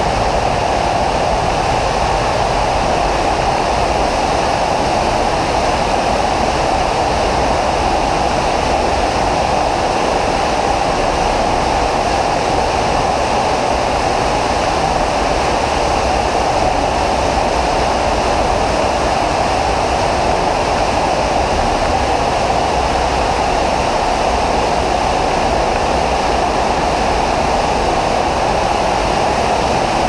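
Waterfall inside a limestone cave, pouring into a rock pool: a loud, steady rush of falling water that does not change.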